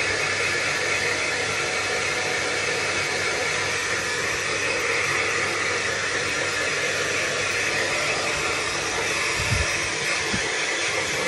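Handheld hair dryer blowing steadily on a small dog's wet fur, with a couple of soft low bumps near the end.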